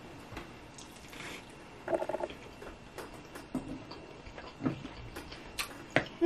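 Close-miked eating sounds: scattered wet clicks and smacks of chewing rotisserie chicken, and the crackle of meat being pulled off the bird by hand, with a short hum about two seconds in.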